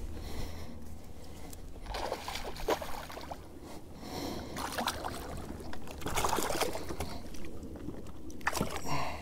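Water splashing and sloshing in irregular bursts beside a kayak, with small sharp clicks and knocks, as a hooked bass is fought up to the boat.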